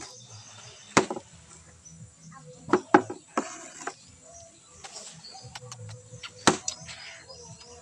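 Several sharp knocks or clacks at irregular intervals, the loudest about a second in, around three seconds and past six seconds.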